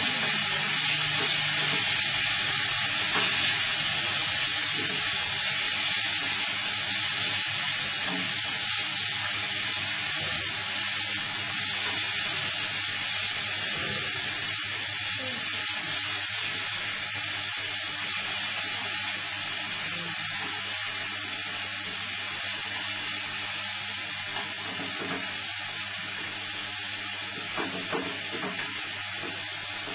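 Food sizzling in a frying pan on a gas stove as it is stirred, a steady hiss that slowly grows quieter, with a few light knocks of the utensil near the end.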